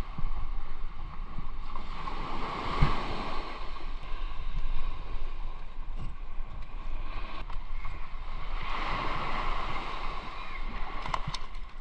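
Small waves washing up on a sandy beach, the wash swelling twice, with wind rumbling on the microphone and a few faint clicks near the end.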